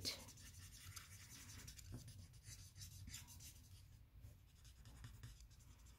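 Faint scratching of an alcohol-marker tip (a Stampin' Blends Color Lifter) stroking over cardstock as it blends ink on a stamped image.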